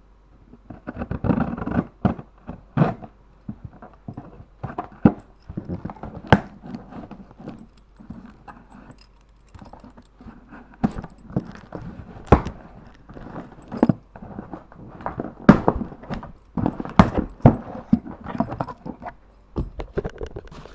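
A cardboard shipping box being opened and handled by hand: irregular scrapes, rustles and sharp knocks, with several louder knocks scattered through.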